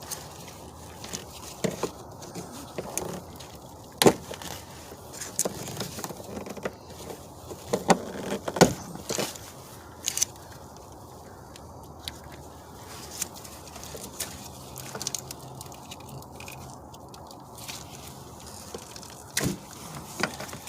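Irregular sharp clicks, knocks and scrapes of hand work on plastic trim push-pin fasteners and the engine-bay parts around them, the loudest snaps about four and eight and a half seconds in.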